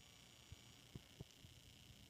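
Near silence: faint room tone, with three soft low clicks near the middle.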